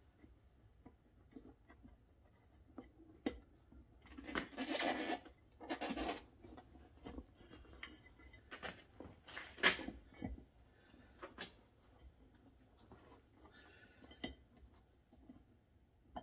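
A small tire, inner tube and steel wheel rim being handled while the tube is worked in. Scattered clinks, taps and rubbing, with louder scraping bursts about four, six and ten seconds in.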